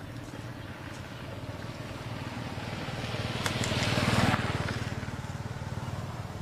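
A motor vehicle passing by: its engine is heard as a low, fast pulsing that grows louder to a peak about four seconds in, then fades away.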